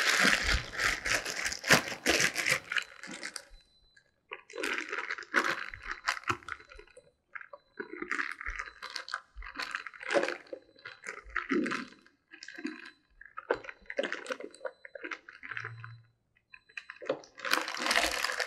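Plastic piping bag crinkling and a spoon scraping and tapping in a glass bowl as thick choux pastry dough is spooned into the bag, in short irregular bursts.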